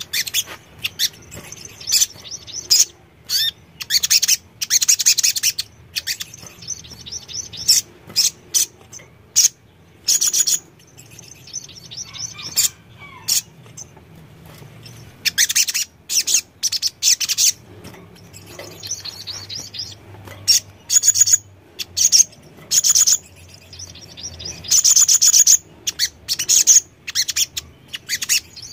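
Male olive-backed sunbird (sogon) singing: repeated bursts of rapid, high twittering trills, each up to about a second long, separated by short pauses.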